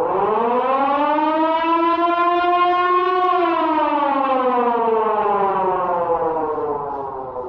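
Civil defense siren wailing. Its pitch shoots up at the start, climbs a little for about three seconds, then slowly winds down towards the end.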